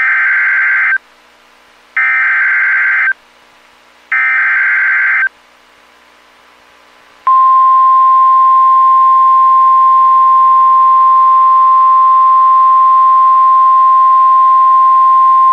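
NOAA Weather Radio alert signal: three short buzzing bursts of the SAME digital header, about two seconds apart, then, about seven seconds in, the steady 1050 Hz Warning Alarm Tone begins. It signals that a new warning is about to be broadcast.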